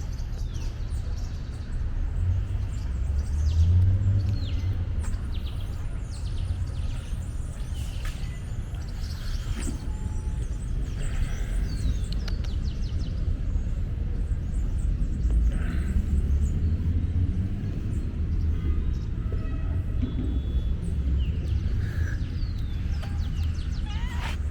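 Outdoor park ambience: a steady low rumble with many short bird chirps and calls scattered throughout.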